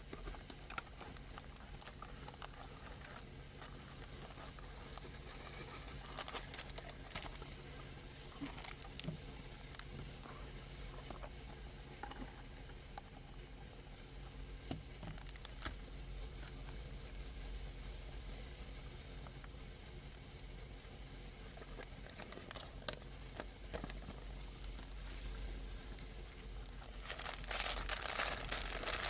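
Packaging of a small building-block kit being handled and opened: crinkling and tearing rustles with scattered small clicks, growing louder and denser near the end.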